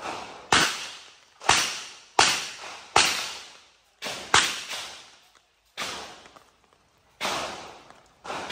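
A string of revolver shots, about eight in all, spaced roughly a second apart, each sharp crack trailing off in a long echo.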